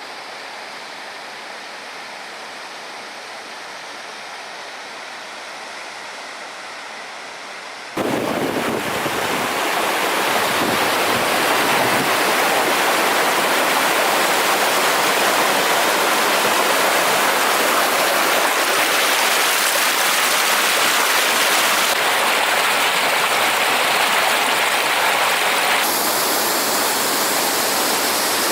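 Rushing water of a small waterfall, a steady hiss: fainter for about the first eight seconds, then suddenly much louder and fuller.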